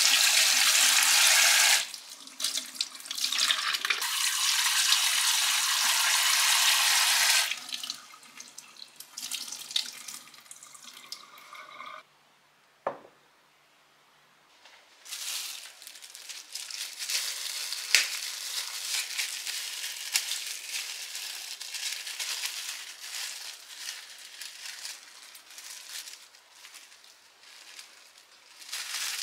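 Tap water running into a stainless steel sink as a small dish is rinsed by hand, in two stretches with a short break near the start. After a pause, softer, uneven rustling and handling noises.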